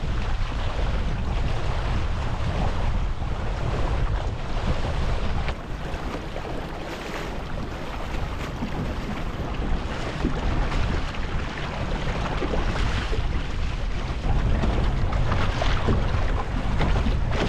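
Wind buffeting the microphone over the rush and splash of water along the hull of a small sailing dinghy under way. The wind noise eases a little about five seconds in.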